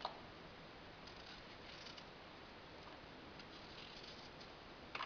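Small knife slicing thin pieces off an apple held in the hand: faint crisp scraping cuts, with a sharp click right at the start and another near the end.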